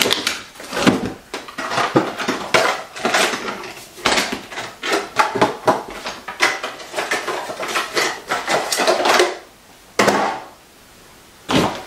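Plastic foot-mask packets crinkling and rustling as they are handled and packed into a small plastic drawer organizer, with light plastic clicks and knocks. It dies down about ten seconds in.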